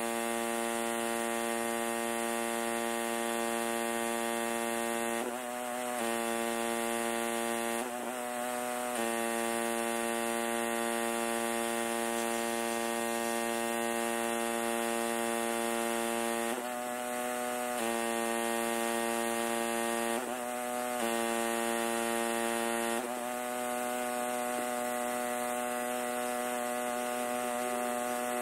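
Pressure washer running steadily with an even, pitched hum that briefly dips and shifts in pitch several times.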